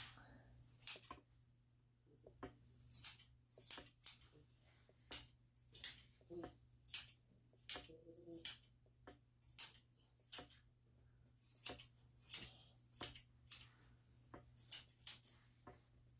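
Dog nail clippers snipping through toenails: a string of about twenty sharp clicks at an uneven pace, roughly one every half second to second.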